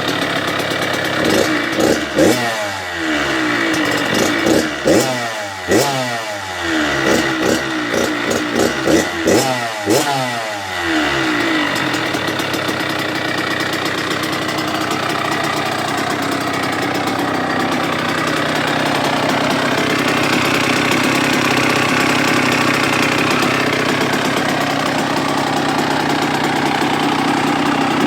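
Kawasaki KX85 two-stroke single-cylinder motocross engine revved in a string of sharp throttle blips, each rising and falling back, for about the first ten seconds, then settling into steady running.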